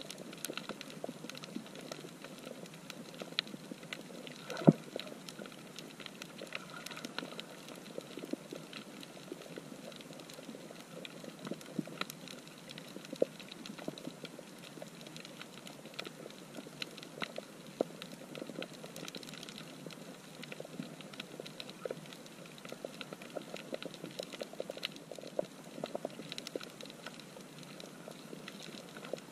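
Underwater coral-reef crackle: a dense, continuous scatter of small clicks and pops, typical of snapping shrimp. One louder knock about four and a half seconds in.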